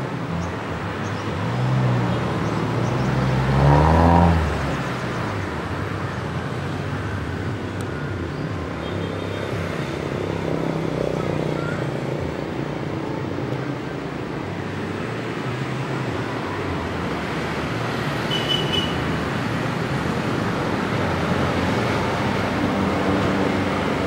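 Steady engine drone of vehicles, its low hum shifting in pitch. About two to four seconds in, one engine swells loudest, rising in pitch as it passes.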